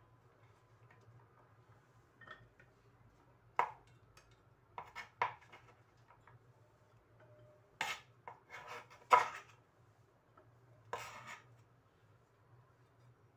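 Kitchen prep clatter: a knife knocking on a plastic cutting board and cut tempeh pieces clinking onto a ceramic plate. Scattered, irregular knocks and clinks rather than a steady chopping rhythm, the loudest a little past the middle.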